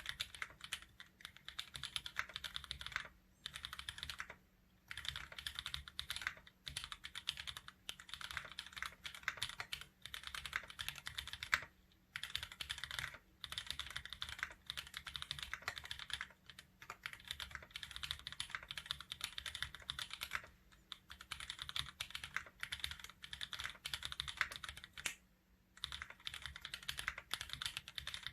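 Fast typing on an AL-60 mechanical keyboard with lubed linear switches (Kailh burgundy stems in Gateron milky yellow housings), a carbon fibre plate and GMK keycaps: a rapid stream of keystroke clacks, broken by short pauses every few seconds.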